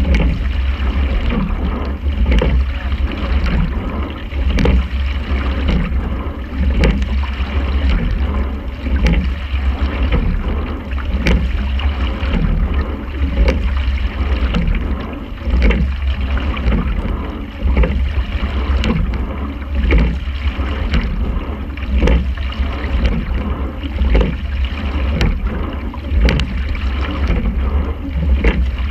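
Quad scull under way at racing pace: a sharp clunk of the oars turning in their oarlocks about once every two seconds, stroke after stroke, over water rushing along the hull and a steady low rumble.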